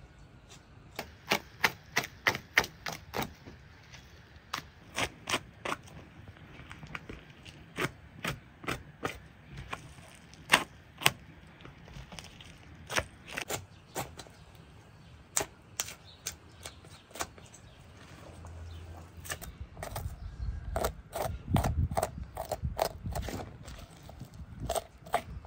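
Knife cutting through a raw bull leg on a wooden board, the blade slicing membrane and fat away from the meat, heard as irregular sharp clicks and ticks, several a second at times. A low rumble rises about twenty seconds in.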